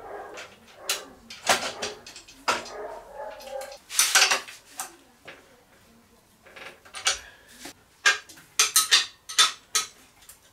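Metal clicks and clinks as a bicycle front wheel is fitted into its fork and handled at the hub, with a quick run of several clicks near the end.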